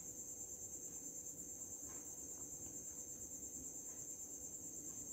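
Faint, steady, high-pitched trill of a cricket, pulsing rapidly without a break, with a few faint small ticks.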